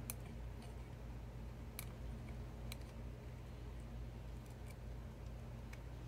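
A few light, sharp clicks a second or two apart as a small tool and wires tap against the cassette mechanism's metal cover, over a steady low hum.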